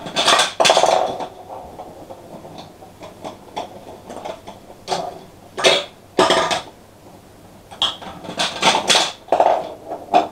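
Small plastic balls rolling and clattering through a plastic block marble run, in several bursts of rattling clacks as they run along the track and drop through the chutes.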